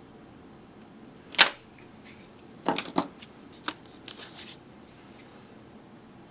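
Sharp snip of scissors cutting the fly-tying thread, the loudest sound, about a second and a half in. It is followed by a quick cluster of lighter clicks and knocks and a few fainter ticks as tools are handled.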